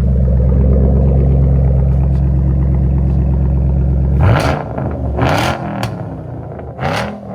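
Supercharged 5.4-litre V8 of a 2012 Shelby GT500, running with a smaller VMP supercharger pulley, held at steady high revs for about four seconds, then let off so the revs fall and swing, with three short loud rushes of noise as it comes back down.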